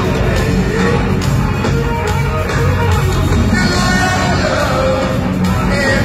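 Live rock band playing loud through a large concert PA: electric guitar, bass and drums, with a male lead singer's vocals, heard from within the audience.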